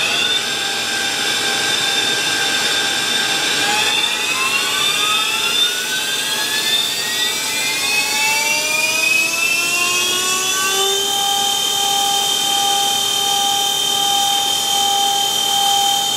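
High-speed water-cooled CNC spindle, run by a VFD at up to 400 Hz, spinning up. Its whine climbs steadily in pitch and levels off about eleven seconds in to a steady high whine at running speed.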